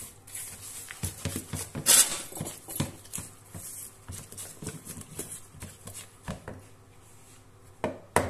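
Spatula stirring and scraping thick cake batter in a plastic mixing bowl: irregular scrapes and small knocks, the loudest about two seconds in, with a few sharp clicks near the end.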